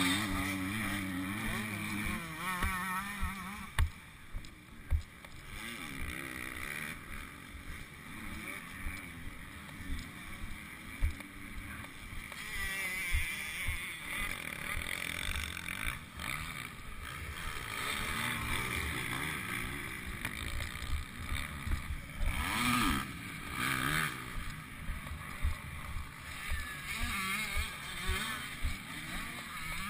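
Motocross bikes revving and running around the track at a distance, their pitch rising and falling, over wind noise on the helmet-mounted microphone. Irregular low knocks on the microphone come and go.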